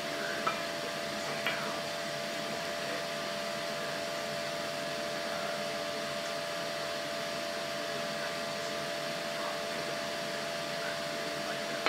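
A steady fan-like machine whir with a faint held tone, and two light ticks in the first couple of seconds.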